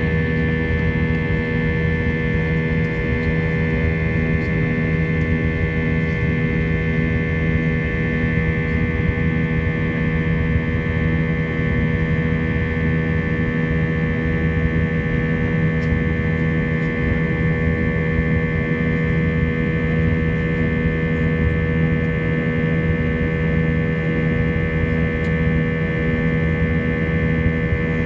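Airbus A321 jet engines heard from inside the passenger cabin as the airliner climbs after takeoff: a steady drone of several held hums and whines over a low rumble.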